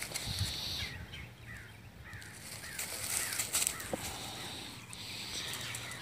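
A puppy rustling and crackling through dry fallen leaves as it wriggles and plays, with a run of faint short chirps a second or two in.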